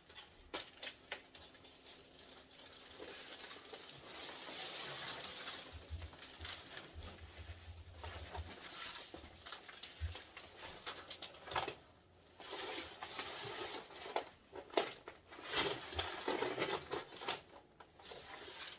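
Continuous rustling and scraping with many light clicks and taps, and a few low thumps: a parrot cage being cleaned out of dropped seed and nut shells.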